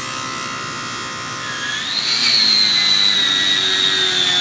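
A steady electric buzz from AC TIG welding on aluminum trails off. About two seconds in, a high, steady power-tool whine starts and holds, dropping slightly in pitch.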